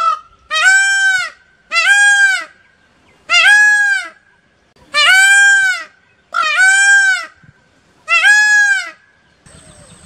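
Male Indian peafowl (peacock) calling: a series of six loud calls, each rising then falling in pitch, about one every one and a half seconds.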